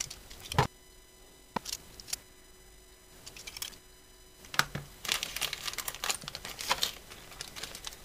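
A clear plastic parts bag crinkling as it is handled, dense and continuous from about five seconds in, after a few sharp taps early on, with the playback sped up.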